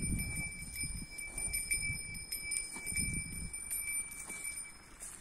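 Cattle grazing at close range: bursts of grass being torn and chewed, loudest near the start and about three seconds in, over a faint steady high-pitched ringing.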